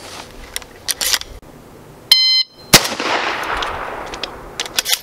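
A shot timer's start beep, a steady electronic tone lasting about half a second, is followed about half a second later by a single 12-gauge shotgun blast with a long fading echo. A few quick clicks near the end come from shells being loaded into the shotgun.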